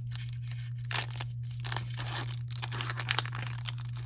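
Foil wrapper of a Pokémon card booster pack being crinkled and torn open by hand: irregular crackling rustles, with sharper crackles about a second in and again about three seconds in. A steady low electrical hum sits underneath.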